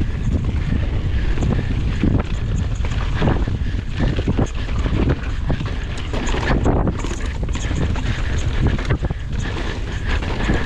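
Heavy wind buffeting the microphone of a mountain bike rider's camera during a fast descent, with frequent knocks and rattles as the bike runs over rough trail.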